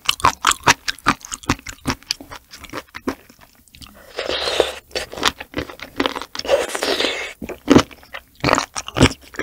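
Close-miked eating of raw sea cucumber roe and innards: rapid wet mouth clicks and chewing, with two longer slurping hisses about four and six and a half seconds in as food is sucked off the chopsticks.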